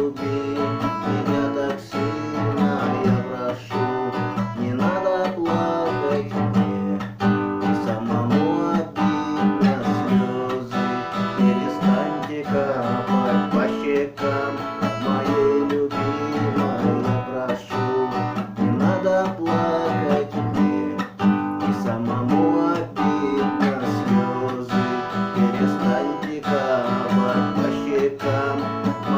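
Acoustic guitar strummed and picked, playing a song's instrumental passage.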